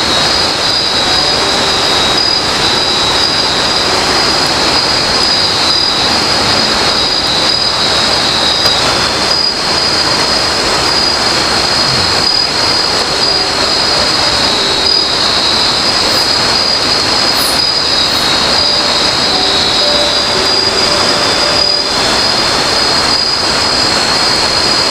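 Night-time chorus of forest insects, a steady shrill buzzing held at a constant pitch, over a constant rushing noise.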